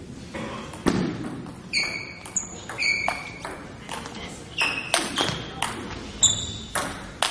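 Table tennis rally: the celluloid ball clicks off paddles and the table about two or three times a second. Sneakers squeak briefly on the wooden gym floor as the players move.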